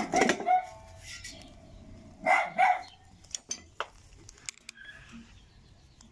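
A dog barks, with loud calls near the start and again about two seconds in. After that come a few sharp metal clicks as a flathead screwdriver works at the retaining tabs around the rim of a Maytag washer transmission cover.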